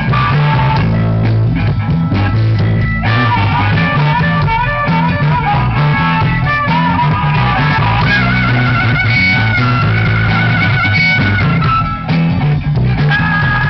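Live blues-rock band playing: an amplified harmonica plays lead lines with wavering held notes over electric guitars and drums, breaking off shortly before the end.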